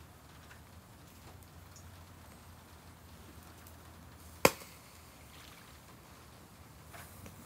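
Chicken gizzard skewers grilling over charcoal in a shichirin: faint scattered crackles, and one sharp, loud pop from the grill about four and a half seconds in.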